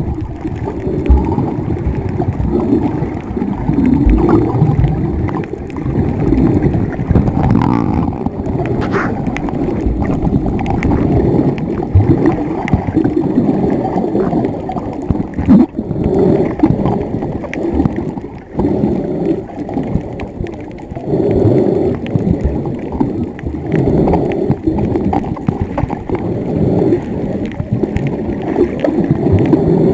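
Muffled churning and gurgling of water heard through a camera held underwater, swelling and dropping unevenly as the snorkeler swims, with a few sharp knocks.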